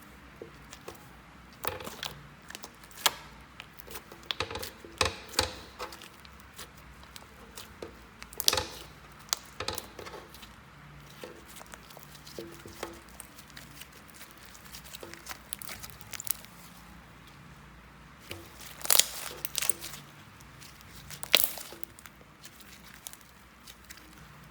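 Slime being worked by hand, giving irregular sticky clicks and crackling pops, with a few louder pops around the middle and two more near the end.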